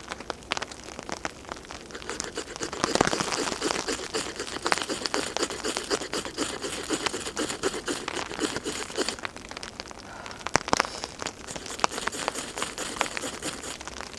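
Rain pattering on a tarp overhead in many sharp drips, with crinkling rustles of tinder being handled close by.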